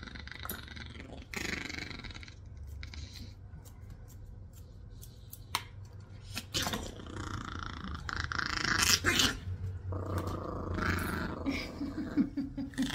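Grooming scissors snipping a Yorkie Biewer puppy's head fur, with sharp clicks scattered through the first half. The puppy growls on and off, most loudly past the middle.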